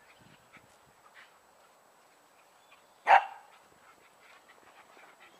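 A dog barks once, short and sharp, about three seconds in.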